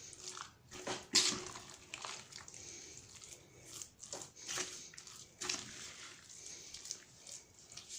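Minced pork and chicken mixed with rice and egg being worked together, making an irregular series of squishing strokes.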